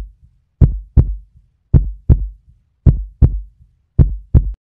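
Heartbeat sound effect: four deep double thumps, lub-dub, about one a second, with silence between them.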